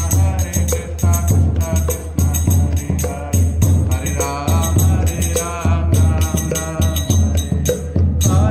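Men singing a Hindu devotional bhajan, accompanied by a two-headed barrel drum (mridanga) and small hand cymbals (karatals) struck in a steady rhythm.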